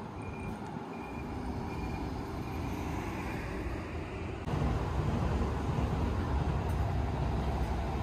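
City street traffic noise: a steady rumble of passing vehicles, with a high electronic beep repeating about every 0.7 s in the first couple of seconds. About four and a half seconds in, the rumble suddenly gets louder and heavier.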